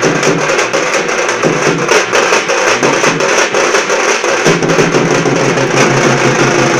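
A small drum band playing a fast, continuous beat together: a frame drum, two side drums and a larger bass drum beaten with sticks, with hand-held metal percussion. The deeper drum strokes grow stronger about four and a half seconds in.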